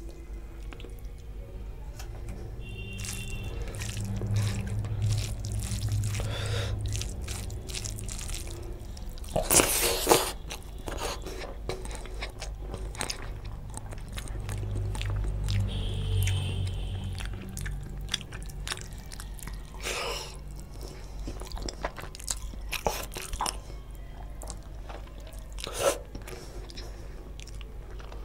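Close-miked wet eating sounds of fish curry and rice eaten by hand: chewing, lip smacks and the squish of gravy-soaked rice, with many small clicks. A louder sharp smack comes about ten seconds in.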